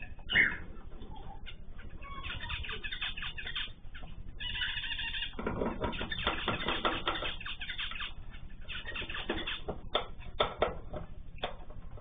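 Mixed aviary birds, cockatiels and finches among them, chirping and calling over one another without pause, busiest about two seconds in and again midway, with wing flaps as birds move between perches. Heard through a camera microphone that loses the highest tones.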